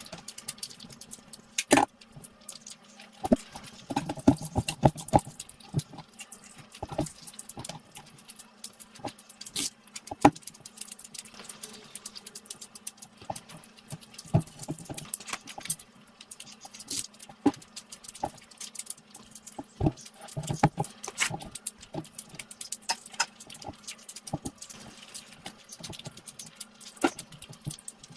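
Close-miked eating sounds: irregular wet clicks of chewing and lip smacking, over a faint steady hum.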